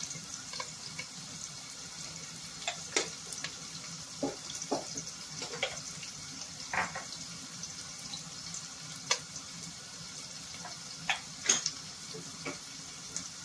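Sliced onions frying in hot oil and ghee in a pot: a steady sizzling hiss with scattered sharp crackles and pops of spattering oil.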